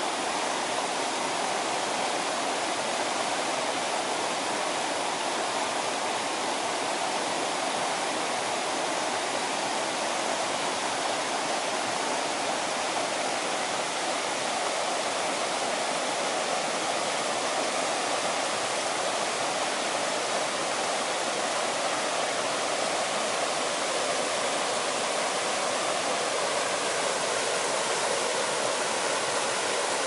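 Shallow rocky stream flowing over stones and small riffles: a steady rush of running water.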